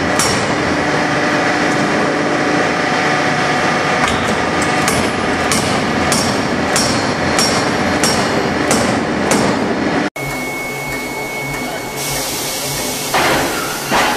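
Power forging hammer striking a red-hot billet in a series of sharp, evenly spaced blows, about three every two seconds, over a loud steady machine din. About ten seconds in it cuts to the steady hum of an induction billet heater, with two metal clanks near the end as a glowing billet is pushed out onto its rails.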